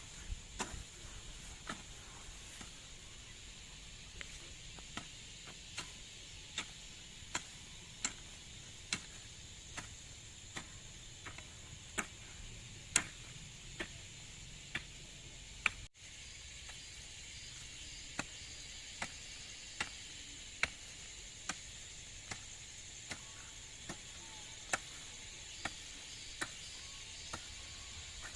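A hand tool chopping in a steady rhythm, a sharp strike about once every second, over a steady high insect hiss. The strikes break off briefly about halfway through, then carry on.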